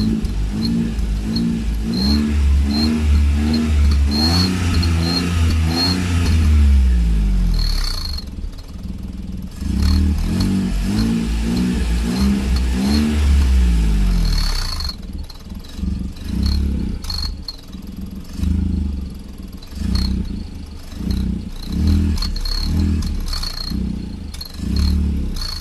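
Suzuki small car's engine revved through an exhaust turbo whistle fitted in the silencer, with a thin high whistle tone along with the exhaust. Two long revs rise and fall, then from about halfway on come quick throttle blips about once a second.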